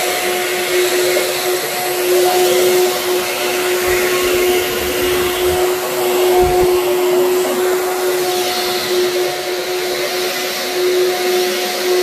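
Clear Trak cyclonic upright vacuum cleaner running steadily, its motor holding one constant whining tone over a rush of air, as it is pushed back and forth across office carpet.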